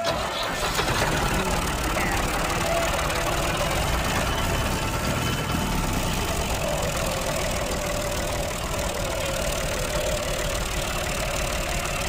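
A steady engine rumbling at idle, with a faint wavering hum.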